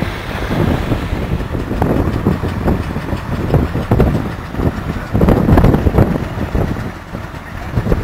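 Farm machinery running: a tractor's diesel engine with a belt-driven threshing drum, a steady loud rumble with uneven knocks and clatter through it.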